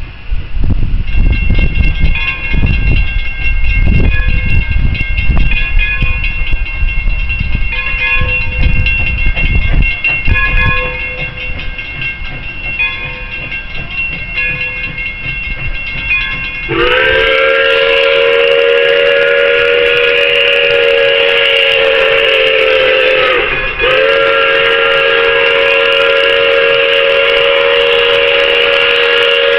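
Pere Marquette 1225, a 2-8-4 Berkshire steam locomotive, approaching with a low rumble. About two-thirds of the way in, its chime steam whistle sounds a long blast, breaks briefly, then sounds a second long blast.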